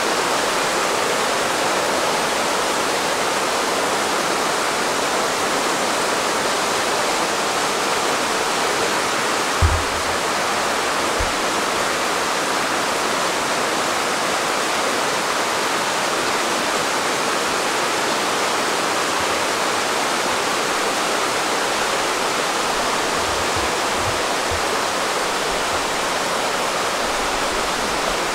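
Rushing water of a mountain stream, a steady even roar. A brief low thump about ten seconds in, with a few fainter low bumps later on.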